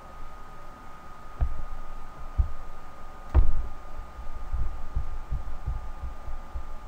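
Irregular low, muffled thumps, one sharper knock about three and a half seconds in and several more close together in the second half, over a steady high-pitched tone.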